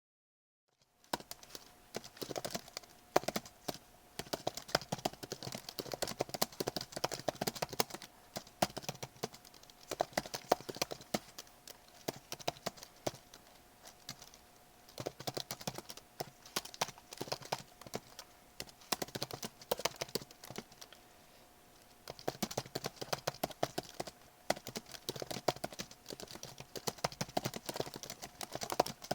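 Typing on a computer keyboard: rapid key clicks in bursts with brief pauses, starting about a second in, over a faint steady tone.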